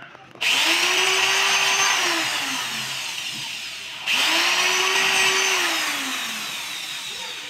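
Corded electric drill boring holes in a wooden spoon handle, run twice: each time the motor comes up to speed at once, holds a steady whine, then slows with a falling pitch as the trigger is let go.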